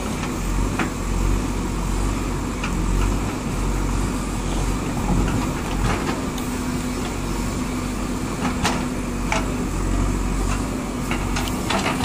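JCB 3DX backhoe loader's diesel engine running steadily while the backhoe bucket works through brick rubble, with a few sharp clacks and knocks of bricks scattered through it.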